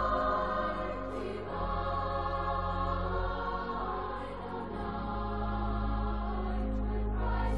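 Choral music: a choir singing slow, held chords over a steady low drone.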